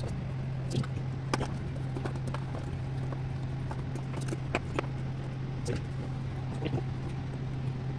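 Scattered light clicks and knocks at irregular intervals, typical of parts and tools being handled during repair work, over a steady low electrical hum.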